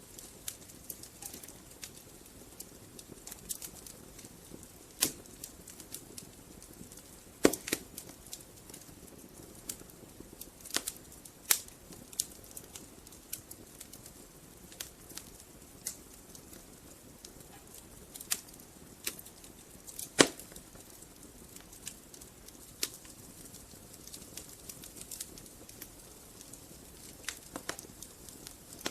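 Wood fire burning in a fireplace, crackling and popping at irregular intervals over a soft steady hiss, with a few louder pops.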